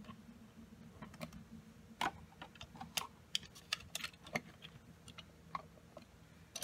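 Faint, irregular plastic clicks and small knocks from a Dahle 133 hand-crank pencil sharpener being handled: the pencil clamp is pulled back and the point-setting dial is turned to the sharp setting. The louder clicks come about two, three and four seconds in.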